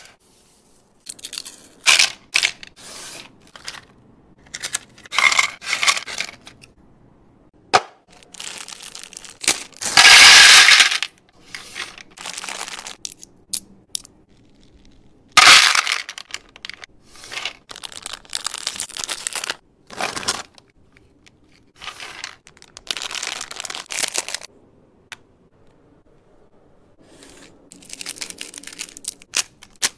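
Plastic candy wrappers crinkling and tearing open, and small candies clattering into a plastic divided serving tray, in short separate bursts with quiet gaps between; the loudest burst, about ten seconds in, lasts over a second.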